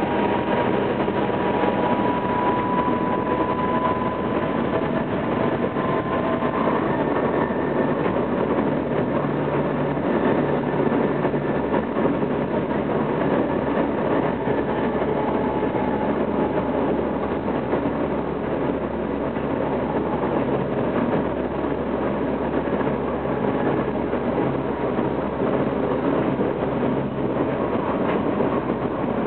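Tokyo Metro 05 series train with Toshiba IGBT-VVVF control accelerating, heard from inside the car: a thin inverter whine rises slightly in pitch over the first several seconds and fades, over steady traction motor and wheel-on-rail running noise.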